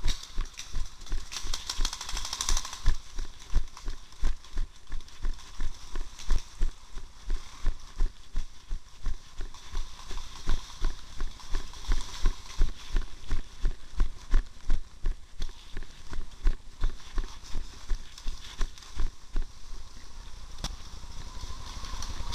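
Running footsteps on grass and dirt, heavy low thuds about two to three a second, with a body-worn camera jostling and camouflage clothing rubbing against the microphone; the steps grow lighter near the end.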